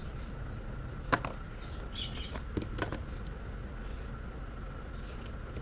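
A few small, sharp clicks of watch parts and tools handled on a workbench while the case back and its o-ring are fitted, over a steady low hum and faint high chirps.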